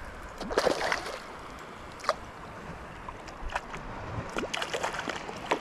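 Shallow water splashing and sloshing, with a few short sharp splashes, as a hooked bluefin trevally is brought in.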